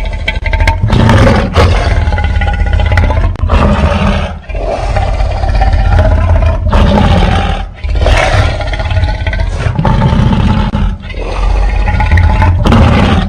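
Giant-monster (kaiju) roar sound effects: a series of loud, pitched roars over a deep rumble, one after another with brief breaks of a fraction of a second between them.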